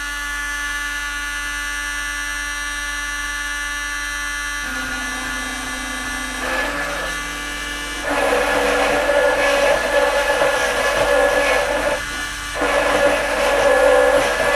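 Rotary-tool spindle of a DIY CNC router running at a steady whine, with stepper motors changing pitch as the gantry moves. About eight seconds in, the bit plunges into aluminium and the engraving cut begins: louder and rougher, with a brief let-up near twelve seconds as the toolpath lifts or moves.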